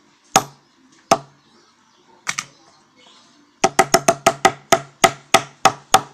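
A hammer knocking on a cracked tempered glass screen protector lying on a wooden block. Three separate blows come first, then a quick run of about four blows a second from about halfway through.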